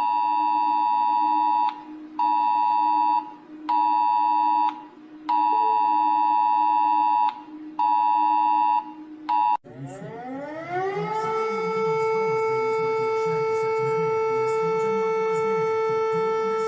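Electronic emergency alert alarm tones. First comes a pitched beep that switches on and off in uneven beeps of about one to two seconds, over a steady lower drone. Then, about nine and a half seconds in, it cuts to a siren-like tone that rises in pitch over about a second and holds steady.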